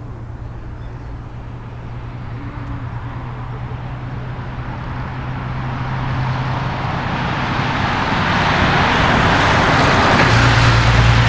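Airbus A330 jet engines at takeoff thrust, a roar that grows steadily louder throughout as the airliner approaches on its takeoff run and climb.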